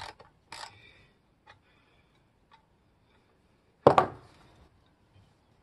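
Hand tools working an exhaust clamp on a slip-on motorcycle muffler: a few light metal clicks and clinks, then a single sharp, loud metal knock about four seconds in, with a couple more faint clicks near the end.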